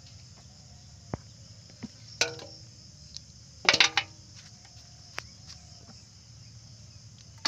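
Crickets chirring steadily in a high, even band. Over it, scattered sharp clicks and knocks, the loudest a short cluster a little under four seconds in, as hands pick through a heap of snail shells.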